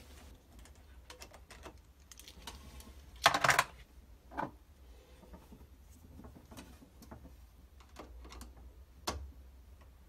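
Small padlock and circuit breaker lock-off clip being unfastened by hand and with a screwdriver: scattered light clicks and rattles, with a louder clatter about three seconds in.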